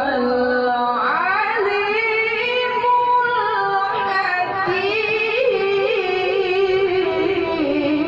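A solo voice chanting Quran recitation in melodic tilawah style: long held notes with wavering ornaments, and a sweeping rise in pitch about a second in.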